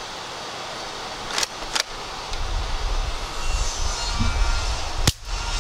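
Bug-A-Salt 2.0 Lawn & Garden salt gun: two quick clicks a little over a second in, then about five seconds in a single sharp crack as it fires a charge of salt into aluminium foil from 3 feet.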